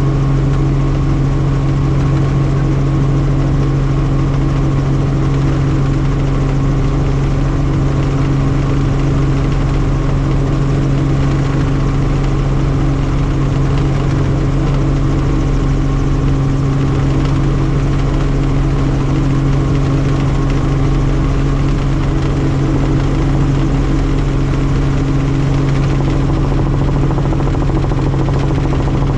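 Helicopter in flight: a loud, steady drone of rotor and engine with a strong low hum.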